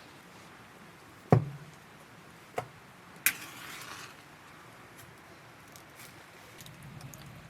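A few knocks on something hard: a heavy knock with a short low ring about a second in, then a lighter tap, then a sharp click followed by a brief rustle.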